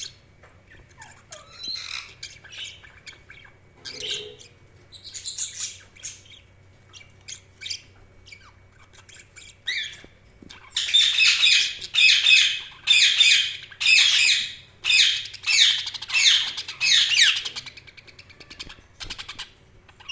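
Budgerigars chirping and chattering: scattered short, high chirps, then about halfway a run of about a dozen loud calls repeated in quick succession for several seconds.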